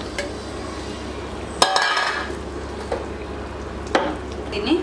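A steel tumbler clinking against a steel cooking pot as stock is poured into rice and masala, with one sharp clink and a short splash about a second and a half in, and lighter clinks later. A steady low hum runs underneath.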